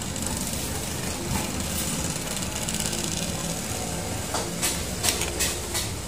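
Steady low mechanical hum of a running motor, with a few short clicks near the end.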